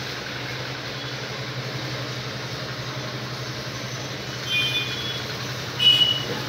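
Steady low mechanical hum, with two short high-pitched tones near the end, the second one louder.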